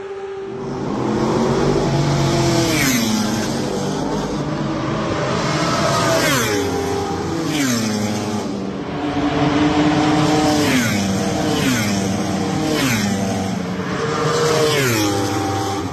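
Several superbike race motorcycles at high revs passing one after another at speed. Each engine note slides down in pitch as the bike goes by, about every second or two.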